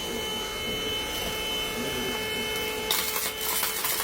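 MyGenie X5 cordless stick vacuum cleaner running at minimum power, a steady motor whine. About three seconds in, a loud crackling hiss with many short clicks joins it.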